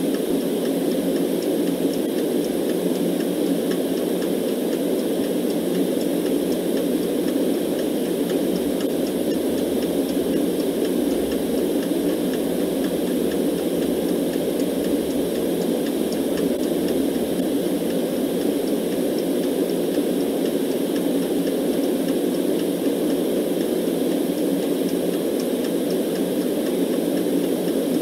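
Steady, deep-toned white noise for sleep, unchanging throughout, with a clock ticking faintly over it.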